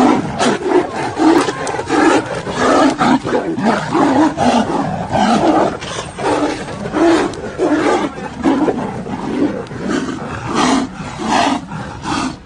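Two tigers fighting, roaring again and again in short, loud bursts, about one or two a second, breaking out suddenly at the start.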